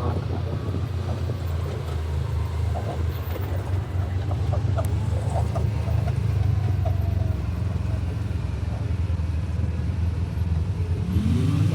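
UTV engine running steadily as the vehicle drives the off-road trail, with scattered short clicks and knocks over it. Near the end the engine revs up, its pitch rising.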